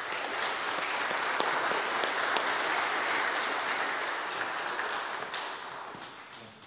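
Congregation applauding, a steady wash of clapping that dies away over the last second or two.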